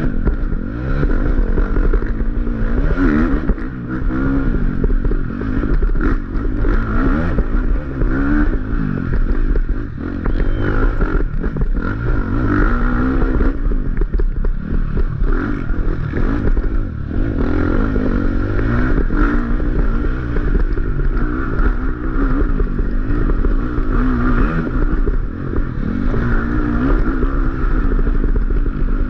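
Dirt bike engine revving hard, its pitch rising and falling as the throttle opens and closes, with knocks and rattles from the bike bouncing over the rough ground.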